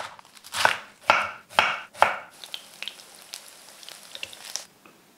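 A kitchen knife chopping lettuce on a wooden cutting board, four cuts about half a second apart. Then pieces of chicken sizzle and crackle in hot oil in a frying pan, cutting off suddenly near the end.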